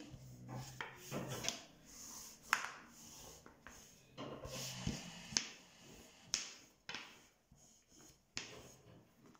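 Thin wooden rolling pin (oklava) rolling out unleavened dough on a counter: soft rubbing and rolling with several sharp knocks of the pin and hands against the board.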